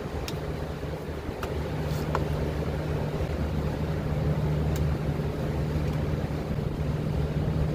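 A machine running with a steady low hum, slightly louder after about a second and a half, with a few short light clicks over the first five seconds.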